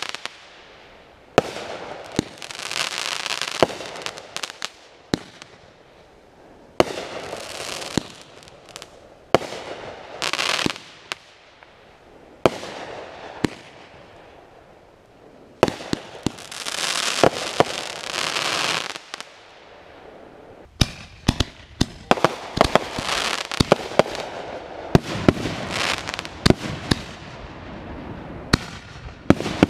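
Aerial fireworks going off: sharp bangs every few seconds, each followed by a few seconds of hissing crackle. In the last third the bangs and crackles come thick and fast.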